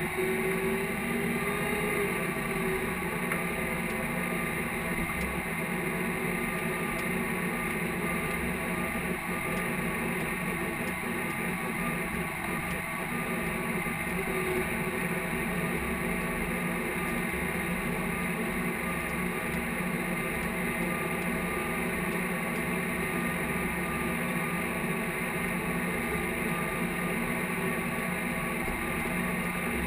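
Case IH tractor engine running steadily while pulling a field cultivator, heard from inside the cab as an even drone.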